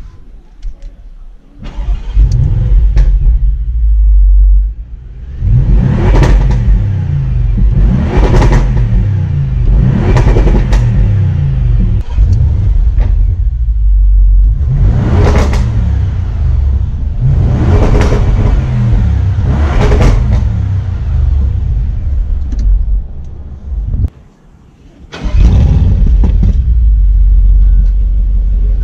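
Audi RS6 Performance's twin-turbo 4.0-litre V8 running while parked: it comes in suddenly about two seconds in with a deep idle rumble, then is revved about six times in sharp blips that rise and fall back to idle. Near the end the sound drops away for about a second and returns at full loudness.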